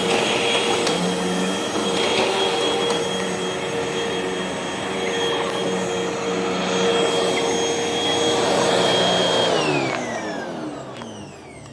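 Hoover WindTunnel upright vacuum cleaner running steadily with a motor whine, then switched off about nine and a half seconds in, its pitch falling as the motor spins down.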